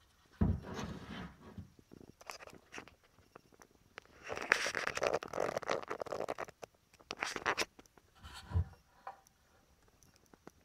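Hands handling and turning over an outdoor pedestal lamp housing on a wooden table: knocks, clicks and scraping. There is a low thump about half a second in, a longer stretch of scraping and rustling a few seconds later, and another thump near the end.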